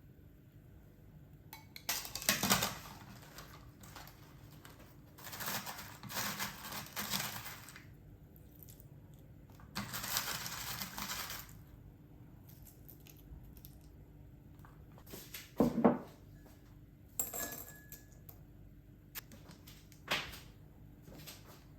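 Kitchen work sounds: three stretches of handling noise lasting a second or two, then a few sharp knocks of kitchenware near the end.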